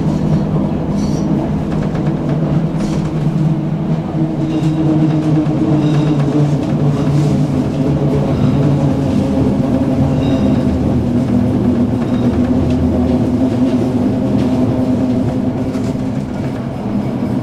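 Tram running along its track, heard from inside the car: a steady rumble of wheels on rail with a low motor hum whose pitch shifts slowly, and a few faint clicks.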